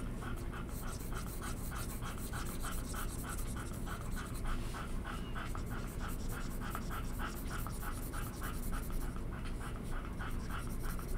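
A dog panting steadily under the desk, about four quick breaths a second.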